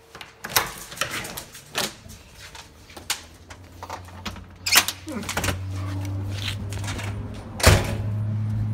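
Door handles and a lock being worked and doors opened: a run of clicks, rattles and knocks. A steady low hum comes in about halfway, and a sharp thump near the end is the loudest sound.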